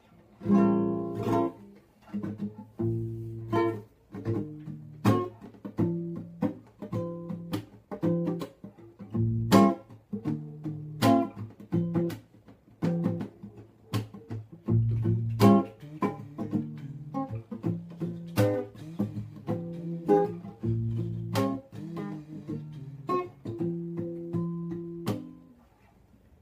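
Nylon-string classical guitar played solo: rhythmic plucked chords mixed with sharp percussive strokes on the strings, stopping just before the end.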